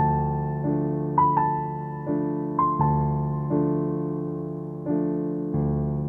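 Slow, gentle piano music: a new chord is struck about every second and a half and each one fades away, with a few higher melody notes in the first few seconds.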